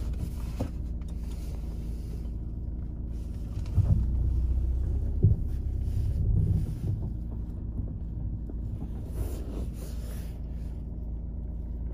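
A vehicle engine idling steadily, heard from inside a car cabin. The hum grows louder for a few seconds in the middle, with a couple of knocks.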